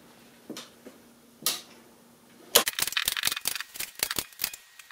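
Hand staple gun clicking as staples are driven into the vinyl seat cover: a couple of single clicks, then a quick run of sharp clicks and rattles from about halfway through.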